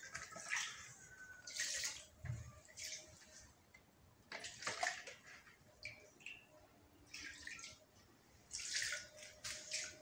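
Liquid poured from a hand-held cup into a small fish pond, splashing on the water surface in short bursts, about five times.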